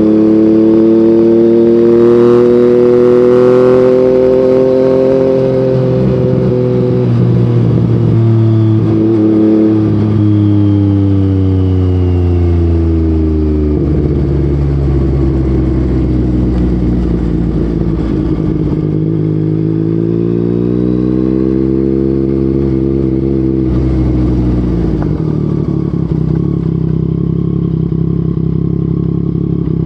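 Yamaha MT-09's three-cylinder engine running through an Akrapovic exhaust while riding. The revs hold high and climb a little over the first few seconds, fall away gradually to a low point about fourteen seconds in, rise again around twenty seconds, then drop and settle steady near the end.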